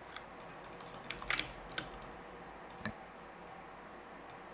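Faint, scattered clicks of a computer mouse and keyboard: a few single clicks, with a short cluster about a second and a half in.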